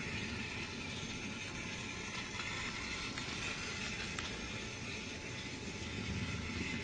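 Battery-powered toy Hank engine running along its track: a steady motor whir with a few light clicks.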